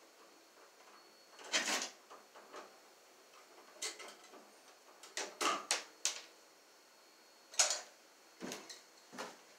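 Scattered sharp clicks and scrapes of pliers and wires being worked at a wall-mounted electrical box, several in quick succession about halfway through. A couple of duller thuds near the end.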